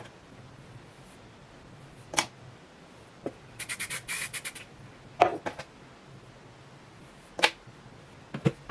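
Handling noises: a few sharp knocks and clicks, with about a second of fast, bright scratching strokes about halfway through.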